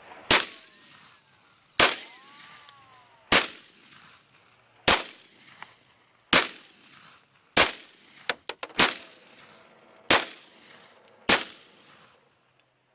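Glock 40 10mm pistol firing nine shots in slow, even succession, about a second and a half apart. The magazine holds alternating .40 S&W and 10mm rounds, and the gun cycles each one without a malfunction.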